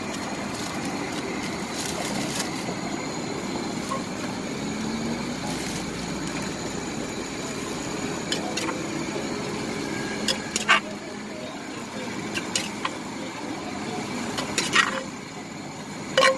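Steady street background noise. About ten to fifteen seconds in come a few sharp clicks and taps as a metal spoon scrapes papaya salad out of a clay mortar.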